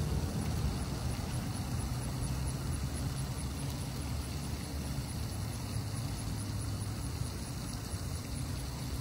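A steady low rumble with no clear start or stop, and a faint, evenly repeating high tick above it.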